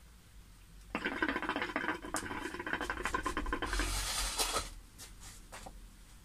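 Homemade glass-bottle hookah bubbling as smoke is drawn through its water: a dense, fast gurgling that starts about a second in and lasts about three and a half seconds, then a few fainter pops.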